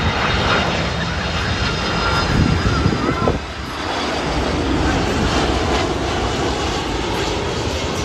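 Jet engines of a Boeing 767 freighter on final approach, a steady rushing drone overhead. The sound drops and changes abruptly about three seconds in.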